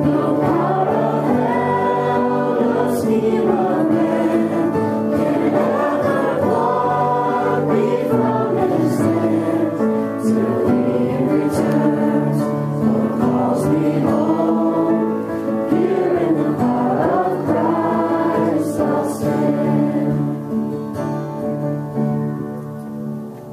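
Choir singing gospel-style Christian music over steady held instrumental notes, starting suddenly and dropping in level over the last few seconds.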